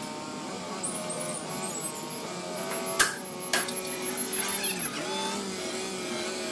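Linde forklift engine running, its pitch shifting as the truck lifts and carries a crated loader bucket. Two sharp knocks come half a second apart about three seconds in.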